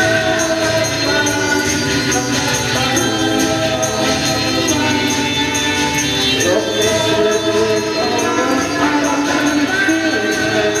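Live electronic music: a woman singing into a microphone over layered, sustained electronic tones, with a thin high percussion keeping a steady pulse.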